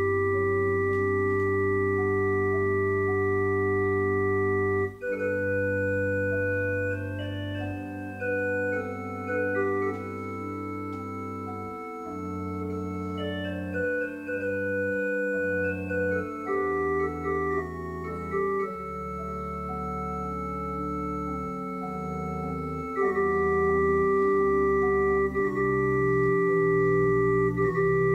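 Church organ playing: a held chord for about five seconds, then several voices moving in slower chord changes, and a full sustained chord again near the end.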